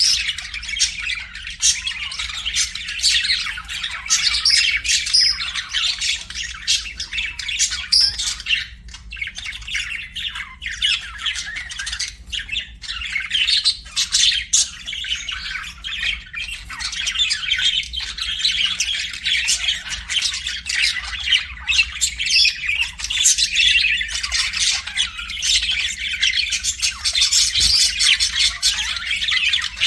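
Budgerigars chirping and chattering without a break, a dense stream of short, quick calls.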